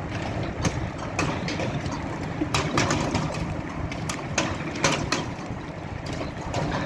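Hail pelting down in a thunderstorm: irregular sharp clacks of hailstones striking hard surfaces, about one or two a second, over a steady rush of the storm.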